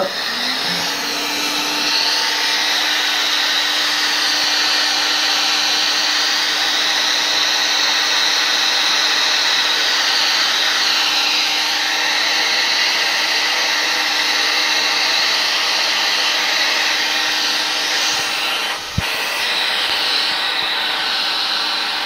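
Black & Decker heat gun running steadily, a rush of blowing air over a steady hum, heating heat-shrink tubing. The sound briefly dips about nineteen seconds in.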